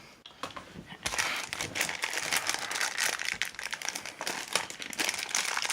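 Plastic packaging crinkling and crackling as it is handled and opened by hand, getting busier about a second in.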